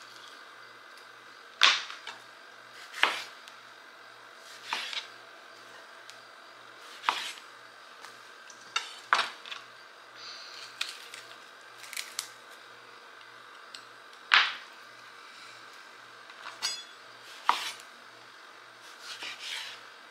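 Knocks and clatters of tomatoes being trimmed and gathered: a knife and the fruit striking a cutting board and a bowl. There are about a dozen separate sharp knocks, a second or two apart.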